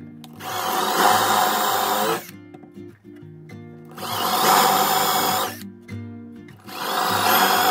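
Power drill boring holes into a wooden board in three runs of about two seconds each, the last still going at the end. The holes are for dowel joints.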